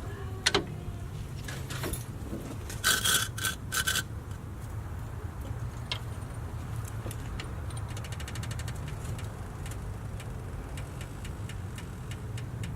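Scraping and knocking of an aftermarket alloy wheel being offered up to a car's hub for a test fit, over a steady low hum. A few loud scrapes and knocks come about three to four seconds in, and a fast run of even clicks follows later.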